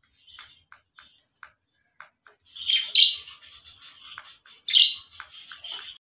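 Budgerigars chirping: short, scattered chirps at first, then from about halfway a louder, fast run of high repeated notes, with two loud calls standing out.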